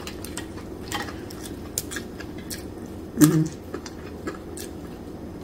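Eating by hand: scattered light clicks and rustles of fingers picking apart crisp fried dried fish (tuyo) and handling a paper plate, with some chewing.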